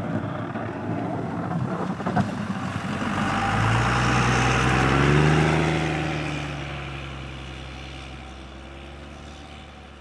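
Pickup truck fitted with a snowplow blade and salt spreader driving past through deep snow: its engine hum and a rushing noise grow louder, peak about five seconds in, then fade as it moves away.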